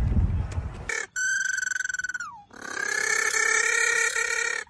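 Little penguin calling in a rapidly pulsing, braying voice: a short call held at one pitch that drops at its end, then after a brief pause a longer call, with another starting right at the end. A low rumble fills the first second before the calls begin.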